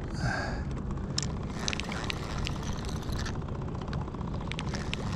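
Spinning reel being cranked to bring in a hooked small striped bass, its gears giving fine rapid ticking over a steady low rumble. There is a short rushing sound right at the start.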